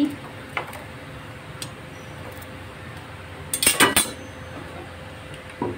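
Metal cookware clinking: a light click about half a second in, then a quick cluster of sharp metallic clanks a little after three and a half seconds, over a steady low hiss.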